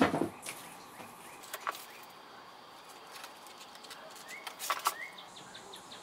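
Leather laces being handled and pulled through drilled holes in a wooden tool case: quiet rustling with a few sharp clicks and taps, and two short rising squeaks in the second half.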